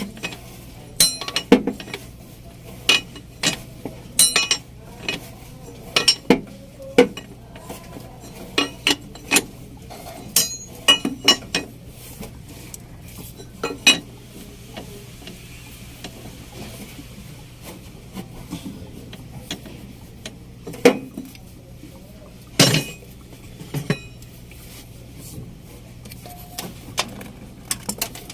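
Metal hand tools clinking and tapping irregularly against metal engine parts. The clinks come thick in the first half and sparser later, with one heavier knock a little past the middle, over a faint steady low hum.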